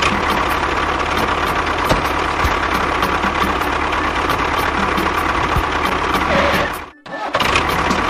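A motor running steadily with a faint regular ticking, cutting out briefly about seven seconds in and starting again.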